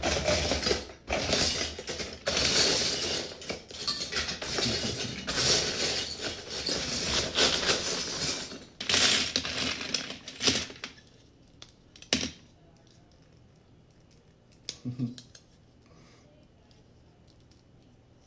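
Loose plastic Lego bricks clattering as a hand rummages through a pile of them for about ten seconds, followed by a couple of single clicks of pieces.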